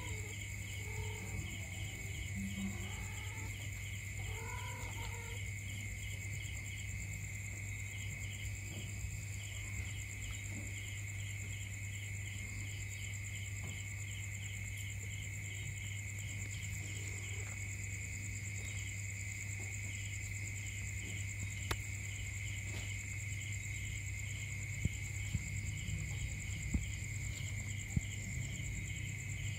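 A steady night chorus of insects chirping in a fast pulsed rhythm over a low hum. In the first few seconds a cat gives several short, low, gliding calls. A few sharp ticks come near the end.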